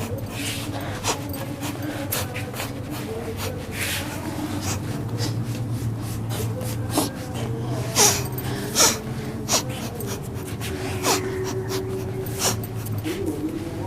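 A person breathing heavily, with gasps and snorts and two louder, sharper coughing sounds about eight and nine seconds in, over a steady low hum.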